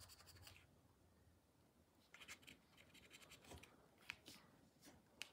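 Faint fingernail scratching on a scratch card, rubbing off the coating in a few short strokes with pauses between: a little near the start, a run about two seconds in, then a few brief scrapes.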